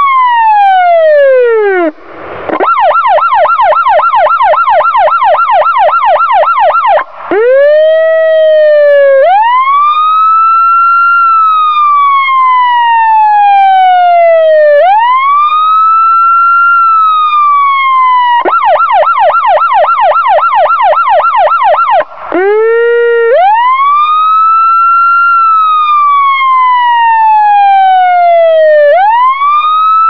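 Federal Signal Director electronic siren switched between its two tones. The wail is a slow rising and falling sweep of about five to six seconds per cycle. The yelp is a rapid run of short sweeps, several a second, heard twice: from about two and a half seconds to seven, and again for about three and a half seconds past the middle. Near the start a wail winds down to a low pitch, and each change of mode comes with a brief drop.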